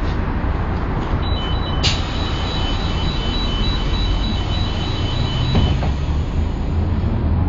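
MAN D 2866 straight-six diesel running steadily, heard from inside the bus cabin, while a rapid two-tone warning beep sounds from about a second in until near six seconds, typical of the bus doors' closing alarm. A sharp knock comes about two seconds in.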